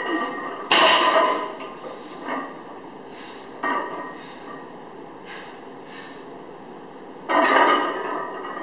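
Loaded barbell with iron plates set down on a lifting platform between deadlift reps, clanking sharply about a second in, more lightly around the middle, and again near the end, with background music under it.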